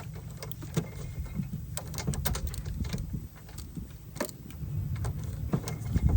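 Hand tools clinking and knocking against metal as pliers work at a car's battery cable, in irregular sharp clicks over a steady low rumble.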